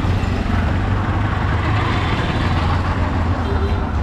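City street traffic: motor vehicle engines running with a steady low rumble under a constant wash of road noise.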